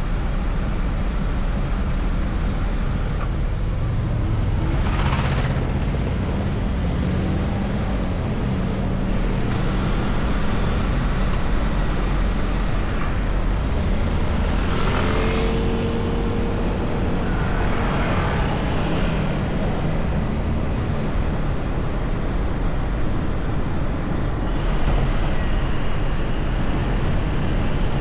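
Car driving in city traffic: steady engine and road rumble, with three brief hissing whooshes along the way.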